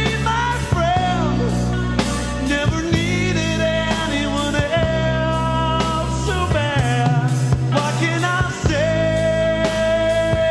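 Rock song played by a full band, with a melody line of long held notes that bend at their ends over steady chords, bass and beat.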